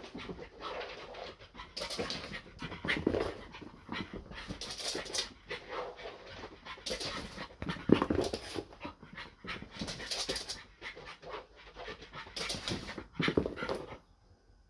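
French bulldog panting hard in a run of noisy breaths while racing about in a fit of zoomies. The breathing stops shortly before the end.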